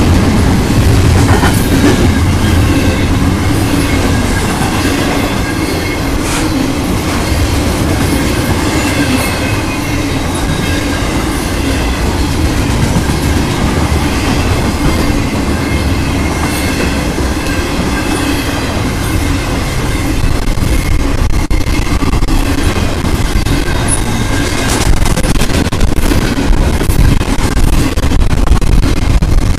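Intermodal freight train cars, double-stack container cars and then trailer-on-flatcar piggyback cars, rolling past close by: a steady heavy rumble with wheel clatter and a faint high ringing from the wheels on the rails, growing a little louder near the end.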